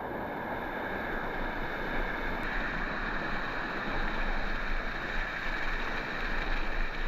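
Waterfall rushing close by: a steady hiss of falling water with a low rumble underneath, growing slightly louder about halfway through.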